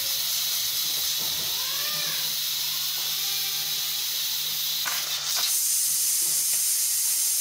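Pressure cooker venting steam from its valve at full pressure: a loud, steady hiss that gets a little louder about five seconds in.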